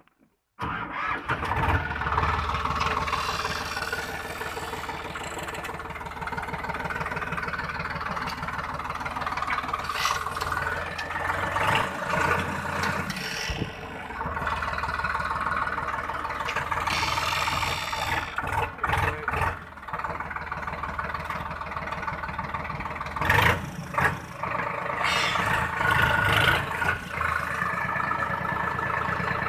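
Farm tractor engine running, starting abruptly about half a second in and then continuing with its level rising and falling.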